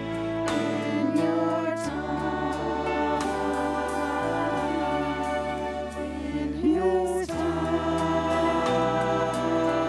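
Church music: many voices singing a hymn together over instrumental accompaniment, with held bass notes changing every second or two.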